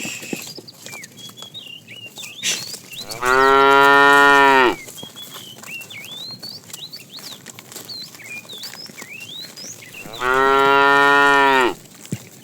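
Cow mooing: two long, level calls about seven seconds apart.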